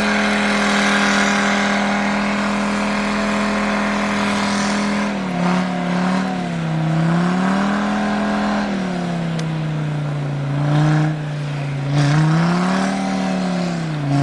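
Mercedes-Benz G-Class engine revving hard while its wheels spin in deep snow, holding one steady pitch for about five seconds and then repeatedly falling and rising as the throttle is worked.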